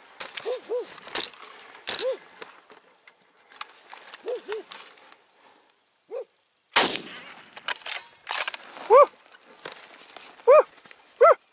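A dog barking in short, arched yelps, singly and in pairs, soft at first; three much louder, closer barks come near the end. Bursts of rustling noise fall in between.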